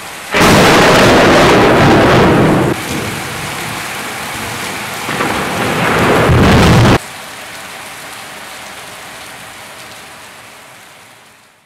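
Thunder in a heavy rainstorm: a loud rumble breaks about half a second in and a second swell comes around five seconds, both over pouring rain. The roar cuts off suddenly at about seven seconds, leaving steady rain that fades out near the end.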